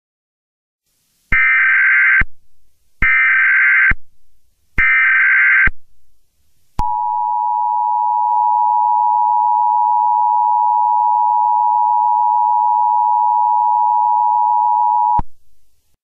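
Emergency Alert System SAME header: three short data bursts about a second apart, then, about seven seconds in, the steady two-tone EAS attention signal held for about eight seconds before it cuts off. The header opens an Emergency Action Termination alert.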